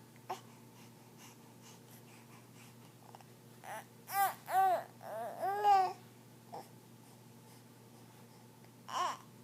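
Baby babbling: a run of short, high-pitched vocal sounds about four seconds in, each rising and falling in pitch, then two more single ones, the last near the end.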